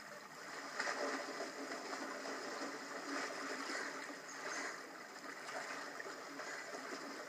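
Lake water sloshing and splashing softly around a swimmer as she moves through it, in uneven swells.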